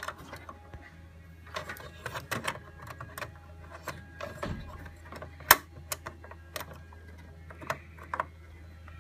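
Scattered clicks and taps of a CPU being taken out of a desktop motherboard's socket by hand, with one sharp click about five and a half seconds in, over a steady low hum.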